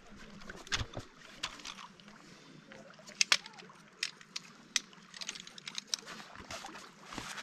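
Camping gear being packed up by hand: sharp clicks and knocks as a folding camp chair is collapsed, then quick rustling and ticking from fabric and a backpack being handled.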